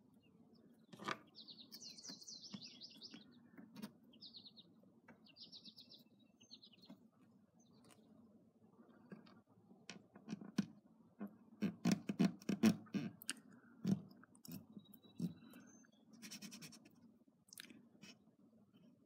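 Masking tape being pulled off its roll in a few short rasping pulls, followed by a run of sharp clicks and light knocks from handling the tape and parts.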